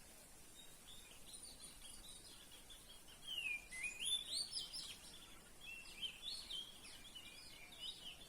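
Oriental magpie-robin singing: a varied run of quick whistled phrases, sliding up and down, loudest about halfway through.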